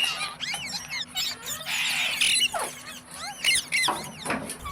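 Indian ringneck parrot making rapid high squeaky chirps and whistled glides, with two short harsh screeches, one at the start and one about two seconds in.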